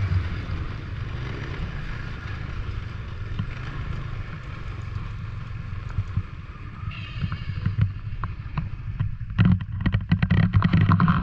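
Snowmobile engine and track running steadily as the machine rides over snow. It gets louder and choppier, with rapid knocks and rattles, from about nine seconds in.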